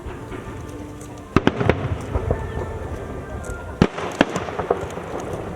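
Aerial fireworks bursting: a quick cluster of sharp bangs about a second and a half in, then more single bangs around four seconds in, with crackling in between.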